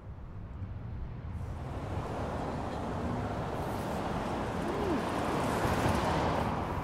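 Street traffic noise, a steady rushing that swells over several seconds like a vehicle drawing near.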